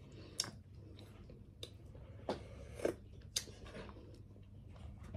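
Faint eating sounds at close range: about five sharp clicks and smacks of chewing and of food being handled in the hands, over a low steady room hum.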